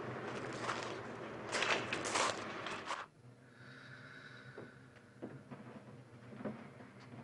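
Outdoor background noise that swells for a moment about a second and a half in, then drops off suddenly about three seconds in to a quiet room with a low hum and a few faint clicks.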